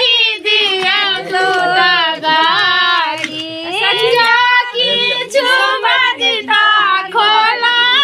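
Women singing a traditional Maithili wedding song in high voices.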